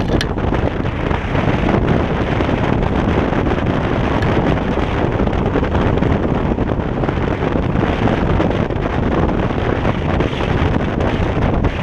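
Steady wind buffeting on the microphone while riding a Kaabo Wolf King GT electric scooter along a street, over a continuous low rumble of tyres on the road.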